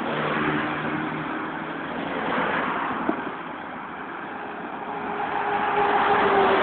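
Road traffic on a wet road: passing cars' tyres making a steady hiss that swells as they go by, with engine hum from a car near the start and another growing louder near the end. A single click about three seconds in.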